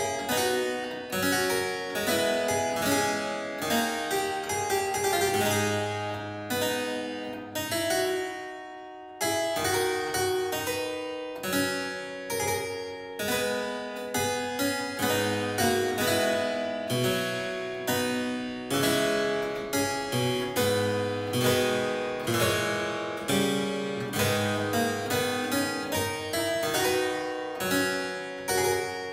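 Harpsichord playing a slow piece of plucked notes and chords. The phrase dies away about eight seconds in, and the playing starts again a second later.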